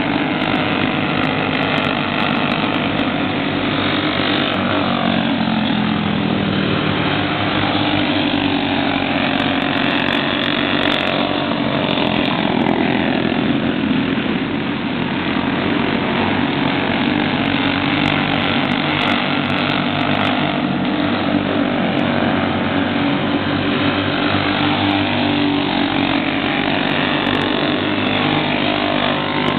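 Several small racing go-kart engines running hard together in a continuous drone. Their pitch rises and falls several times as karts pass by.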